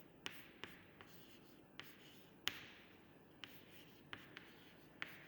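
Faint writing: about nine short taps with light scratching in between, the loudest about halfway through.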